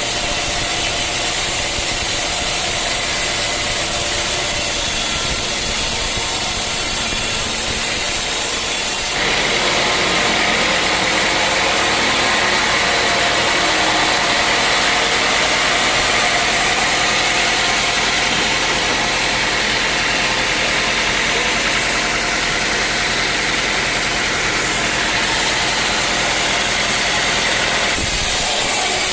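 Sawmill machinery running steadily with a loud, continuous mechanical noise. The character of the sound changes abruptly about nine seconds in and again near the end.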